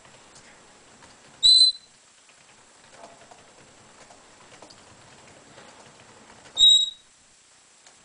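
Red-bellied parrot giving two short, loud, high-pitched whistled calls about five seconds apart, with faint rustling and ticking between them.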